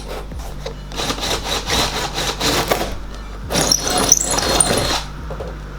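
Power tool cutting into a carbon fiber hood, in two runs of gritty cutting with a faint high whine, the second starting about three and a half seconds in.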